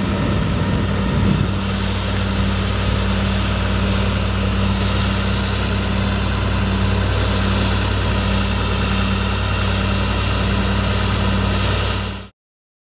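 Diesel-era medium-duty bucket truck (2006 Chevrolet C7500 with an Altec L42M boom) engine idling steadily while the boom is powered down toward its stowed position. The sound cuts off abruptly near the end.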